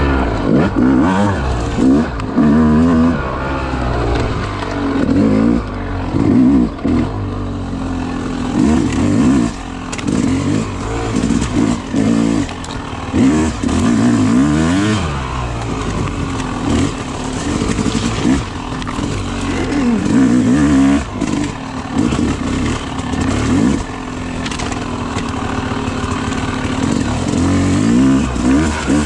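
Yamaha YZ250 two-stroke dirt bike engine being ridden on a trail, revving up and dropping back again and again every second or two as the throttle is worked.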